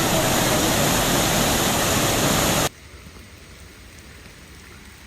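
Loud, steady rush of water at a dam, cutting off abruptly under three seconds in, followed by a much quieter steady hiss.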